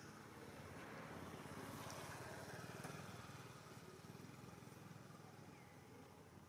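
Faint sound of a distant motor vehicle passing by, swelling to a peak about two to three seconds in and then slowly fading.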